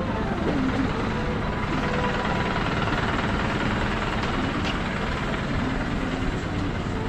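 Steady street traffic noise with a low engine rumble.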